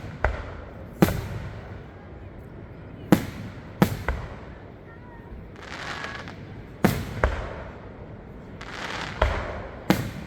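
Fireworks show: aerial shells bursting with sharp bangs, about eight in all, several in quick pairs, with stretches of crackling between them.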